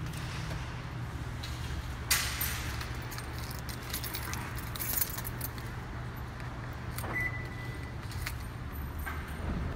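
Keys jangling in a hand as someone walks, in bright clusters about two seconds in and again around four to five seconds, over a steady low hum.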